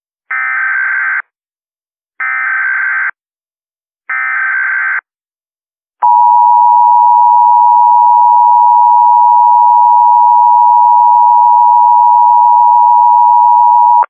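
Emergency Alert System SAME header: three bursts of screeching digital data tones, each about a second long, then the EAS attention signal, a steady two-tone beep held for about eight seconds that cuts off at the end. It marks the start of an emergency alert broadcast.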